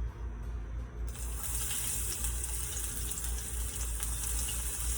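Garlic dropped into hot oil in a pan, sizzling as a steady high hiss that starts about a second in.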